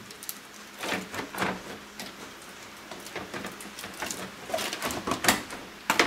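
Volvo radiator fan shroud being wiggled up out of the engine bay: irregular knocks, rattles and scrapes as it shifts and is fed around the surrounding hoses and wiring.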